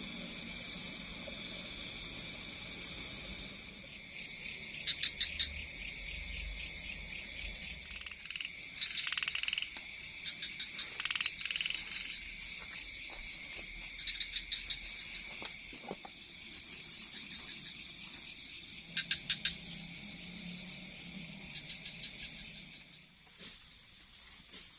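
Night chorus of frogs and insects: a steady high insect drone, with bursts of rapid pulsed frog calls every few seconds from about four seconds in.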